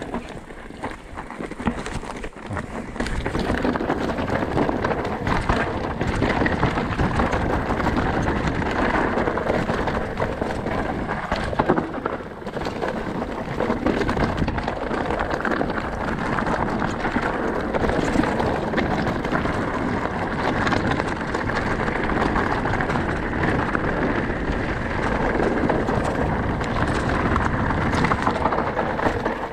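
Mountain bike riding down a rocky trail: tyres crunching over gravel and stones, with constant rattling and knocks from the bike, and wind on the camera's microphone. The noise grows louder a few seconds in.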